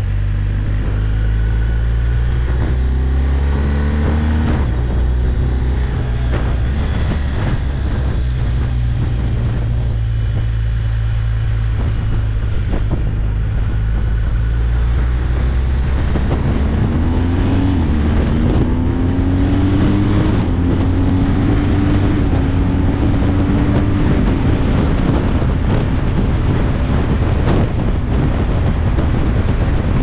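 BMW R 1250 GS Adventure boxer-twin motorcycle engine pulling hard under acceleration. Its note rises in pitch and drops back at each upshift, a few times in the first seconds and again over the second half. Heavy wind noise buffets a helmet-mounted microphone throughout, as loud as the engine: a lot of wind noise.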